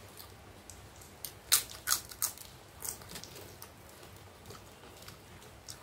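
Close-up chewing of crunchy food: a quick run of loud, crisp crunches about one and a half seconds in, then a few softer ones.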